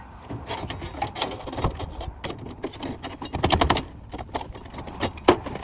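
Metal clattering and scraping as gloved hands rummage through tools in the drawers of a fire-damaged steel tool chest, with a burst of rapid rattling about three and a half seconds in and a sharp clank near the end.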